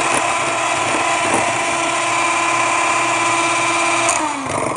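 Electric hand mixer running at a steady whine, its twin beaters whipping cream in a bowl, then slowing down with a falling pitch near the end.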